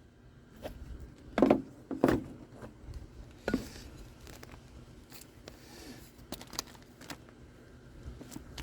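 Small handling noises as an oil filter housing cover and hand tools are picked up and set down: a few sharp knocks and clicks in the first few seconds, with soft rustling between.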